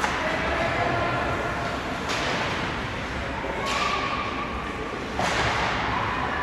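Four hard cracks and thuds of hockey sticks, puck and players hitting the rink boards, about a second and a half apart, each echoing around the ice arena.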